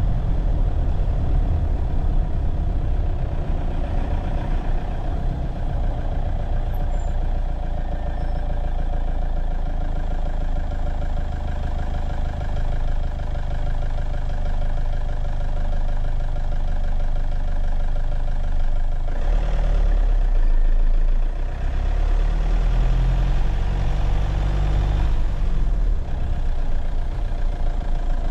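Vehicle on the move, a steady low rumble with a hum. The low rumble swells about two-thirds of the way through and eases off again near the end.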